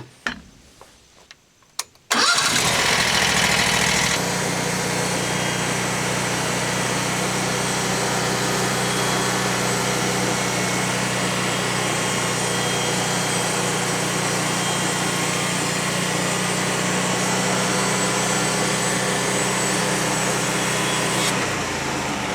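The Frontier OS35 portable bandsaw sawmill's engine, running steadily and loudly. It comes in abruptly about two seconds in after a near-quiet moment with a few small clicks.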